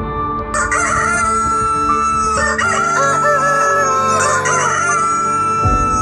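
Roosters crowing: about three long crows one after another, partly overlapping, over background music.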